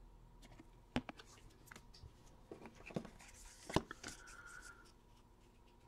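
Baseball trading cards being handled: faint scattered clicks and brief rustles of cards sliding and flicking against each other, the sharpest near one second in and just before four seconds.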